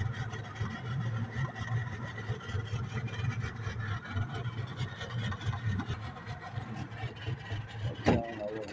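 Small fishing boat's engine idling with a steady low hum, and a single knock about eight seconds in.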